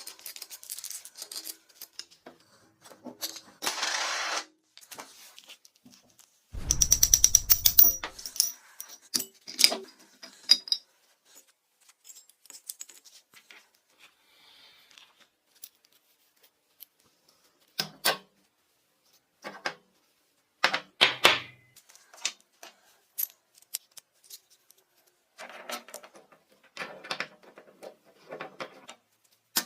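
Small metal parts and hand tools clicking, tapping and clinking as a part is worked on by hand, with a dense rattling burst lasting a second or two about seven seconds in.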